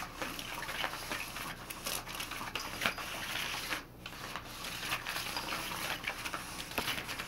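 Cat's Meow battery-powered cat toy running: the wand it drives sweeps under the fabric cover with a steady rustling and scratching over a faint motor hum, with a brief lull about four seconds in.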